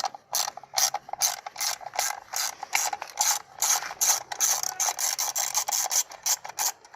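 Ratchet wrench worked in short back-and-forth strokes, each stroke a quick burst of clicks, about three to four a second, undoing the bolts of the intake manifold's upper section.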